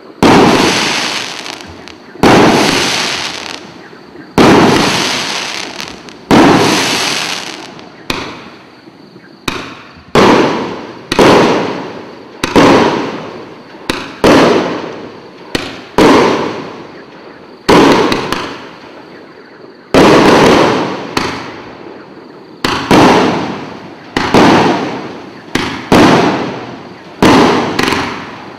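Bugano 'Orient' 54-shot consumer fireworks battery firing shot after shot, one about every one to two seconds. Each is a sudden sharp bang that fades away over a second or so.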